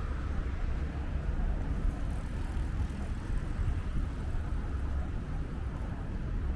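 Wind buffeting the microphone: a gusty low rumble that swells and eases without pause, with faint street noise underneath.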